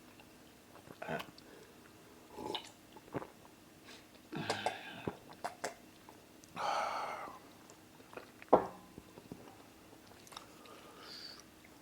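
Close-miked eating sounds of people eating amala and egusi soup: scattered chewing, smacks and mouth clicks, with a few short breathy murmurs. There is one sharp click or knock about two-thirds of the way through.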